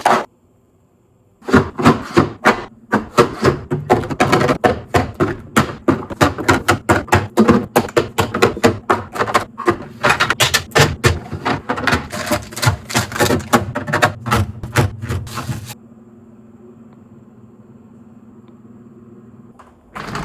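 Rapid knocking and clattering of containers and fridge parts being handled and set down, about four or five knocks a second, stopping about three-quarters of the way through. A low steady hum remains after it, with one more knock near the end.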